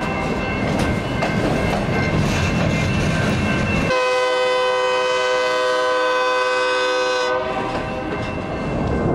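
Freight train rolling past with a steady rumble and wheels clacking over rail joints, then a long blast of its multi-tone air horn about four seconds in, lasting about three seconds, before the rumble carries on.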